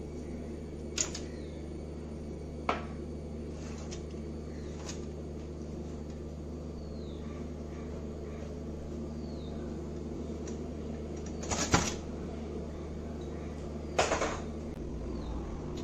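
Metal springform cake pan being opened: a few light clicks, then two louder metallic clatters near the end as the clasp is released and the ring comes off the cake, over a steady low hum.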